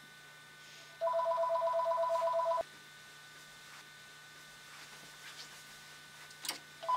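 Telephone ringing: one electronic ring of two steady tones, lasting about a second and a half and starting about a second in. The next ring starts right at the end, with a click just before it.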